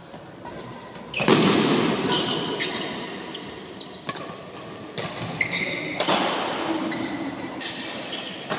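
Badminton rally: sharp racket strikes on the shuttlecock about once a second, the loudest a little over a second in, each echoing through a large hall.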